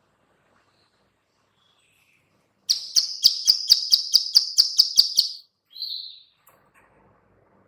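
Female plain prinia (ciblek sawah) giving its rapid 'klik-klik' call: a run of about eleven sharp, buzzy clicks at roughly four a second over two and a half seconds, followed by one short note.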